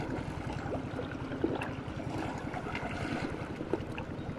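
Steady wind and sea-water noise at a rocky shoreline, with faint scattered clicks.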